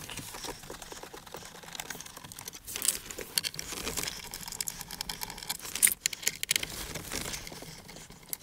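Scattered light clicks and rattles of small metal parts and hard plastic as a car's dashboard display unit is worked loose by hand, with one sharper click about six seconds in.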